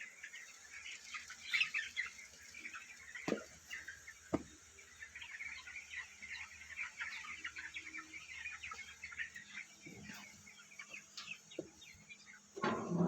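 A flock of about four-week-old broiler chickens peeping and clucking continuously. Two sharp knocks come about three and four seconds in.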